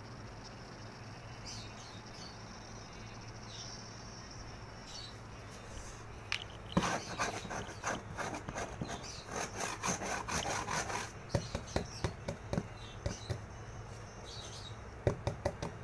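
Scratching and rubbing on a cardboard box: after a few quiet seconds, a dense run of rustling scratches lasting about four seconds, then shorter separate scratches or taps that come faster near the end.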